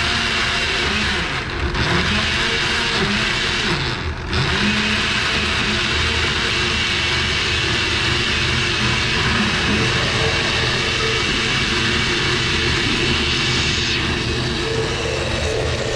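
Countertop electric blender running, its motor whirring as it purees a wet seasoning paste. The sound dips briefly twice, about a second and a half in and again at about four seconds, and turns to a steadier hum near the end.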